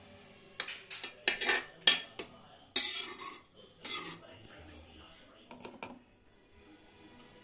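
Metal spoon clinking and scraping against a kadhai and a glass jar as cooked masala is spooned out, about seven sharp clinks and scrapes in the first six seconds.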